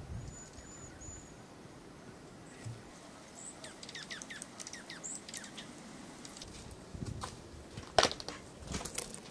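Small songbirds chirping at winter bird feeders: a run of quick, high, down-slurred chirps, with a sharp, louder click about eight seconds in.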